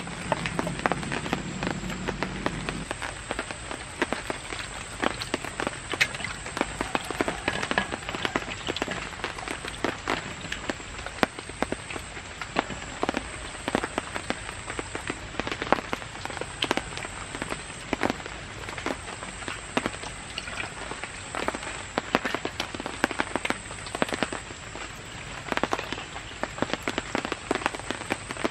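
Heavy rain falling on a camp shelter: a steady hiss dense with sharp drops landing close by. A low hum stops about three seconds in.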